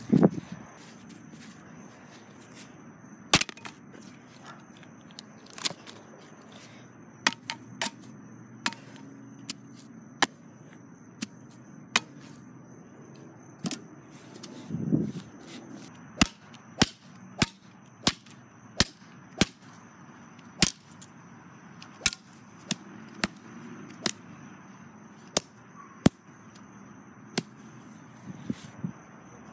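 A series of about two dozen sharp cracks, like small shots, at irregular intervals of roughly half a second to two seconds, with a brief low rumble about halfway through.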